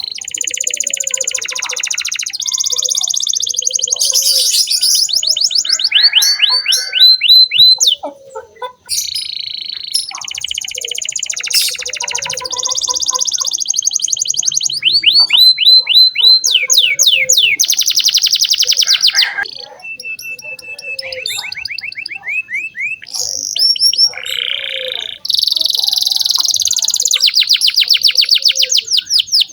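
Domestic canary singing on and on in long phrases of fast trills and rolls and quick runs of repeated sweeping notes, with a short break about eight seconds in.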